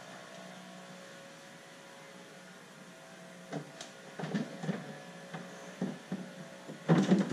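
The heavy engine cowling of a Suzuki DF250 V6 outboard being set down onto the motor and pressed into place. A series of knocks and clunks starts about three and a half seconds in, with the loudest cluster near the end, over a steady low hum.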